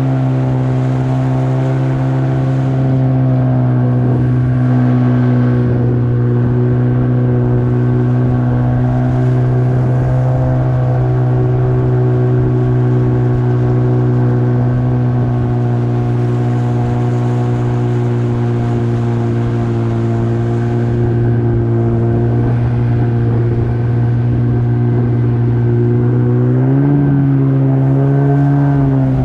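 Yamaha 30 two-stroke outboard with a jet attachment running steadily at cruising speed, pushing a PVC boat along a river. The engine note rises briefly near the end, then settles back.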